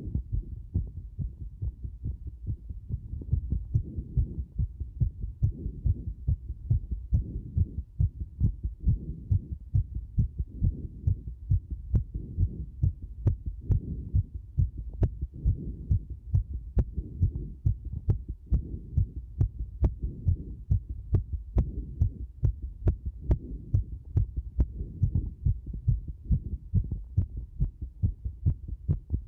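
A human heartbeat recorded close up: a quick, steady run of low thudding beats.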